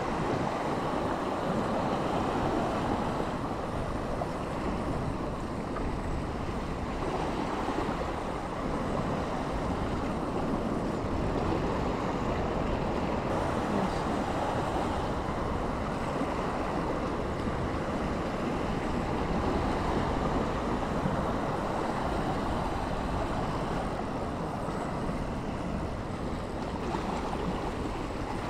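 Steady wash of sea waves with wind buffeting the microphone, an even rushing noise with no clear rises or breaks.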